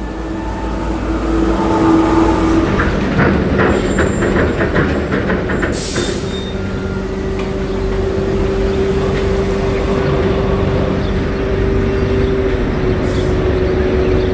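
Engine of a heavy M3 amphibious bridging vehicle running as it drives. A quick run of rattling clicks comes a few seconds in, then a steady whine over the engine noise.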